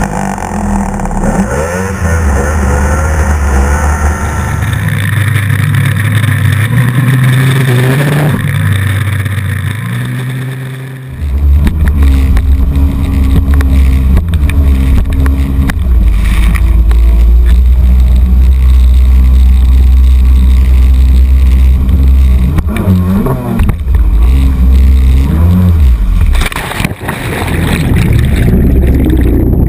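Snowmobile engine running hard, heard from a camera on the machine, then, after a cut about eleven seconds in, a jet ski's engine running steadily at speed.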